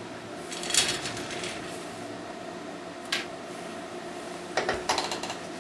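Sharp metallic clicks and clatters from a capacitive-discharge micro resistance welding setup (CD320DPM2 welder and weld head) over a steady low hum: a short burst about a second in, a single click a little past halfway, and a quick run of clicks near the end.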